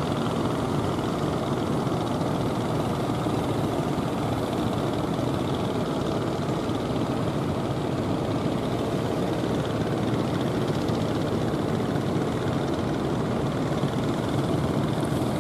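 Fishing boat engine running steadily.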